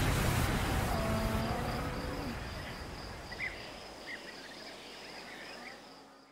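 Countryside ambience fading out: a steady high-pitched insect trill and a few short bird chirps under a dying noise wash left from the music's last beat, all fading down and cutting off at the end.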